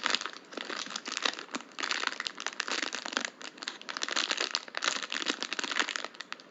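Thin plastic packaging crinkling in irregular bursts as a squishy toy is handled and turned over.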